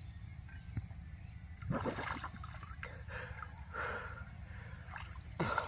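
Water splashing in short bursts, about four times, as a free-diver surfaces and moves at the river's surface, over a steady high chirring of insects.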